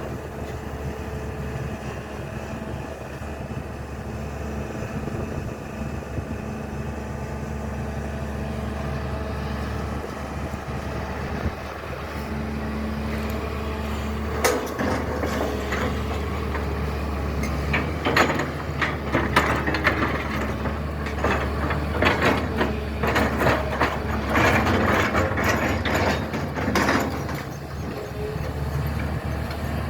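SANY excavator's diesel engine running steadily. From about halfway in it works harder, with repeated clanks and scrapes as the machine digs.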